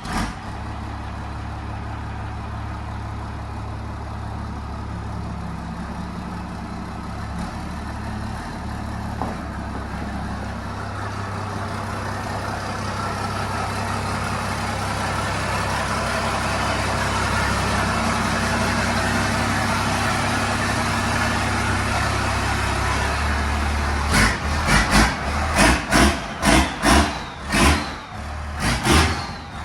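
Truck engine, most likely the first-gen Cummins diesel, running steadily and slowly growing louder. Over the last five seconds it is broken by a run of about ten loud pulses, roughly two a second.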